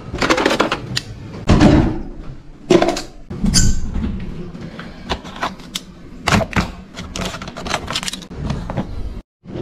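Irregular knocks, bumps and clatters. The heaviest come in the first two seconds and again about three seconds in, followed by lighter scattered clicks.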